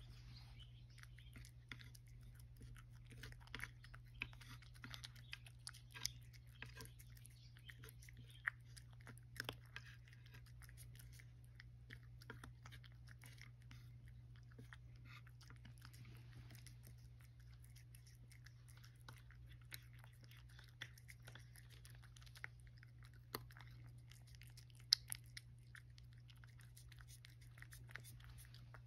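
Cat eating dry kibble: quick, irregular crisp crunches and clicks of chewing, over a steady low hum.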